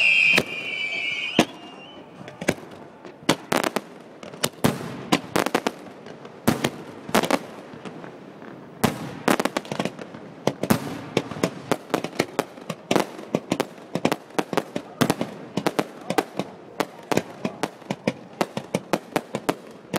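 Fireworks going off. A high whistle, falling slightly, ends about a second in. Then comes a run of irregular sharp bangs and crackling pops that grows denser toward the end.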